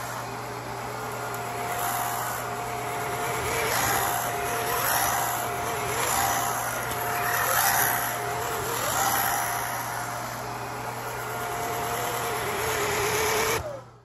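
Redroad V17 cordless stick vacuum running, its dual-roller motorized brush head pushed back and forth over a rug: a steady motor whine with a thin high tone over a rushing hiss. The sound swells and eases with each stroke, then stops shortly before the end.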